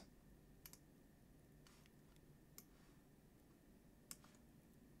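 Near silence with four faint computer mouse clicks, the sharpest about four seconds in.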